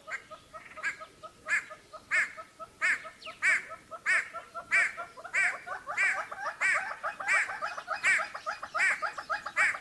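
Animal calls: a loud call repeated steadily about every two-thirds of a second, over a fast chatter of lower notes.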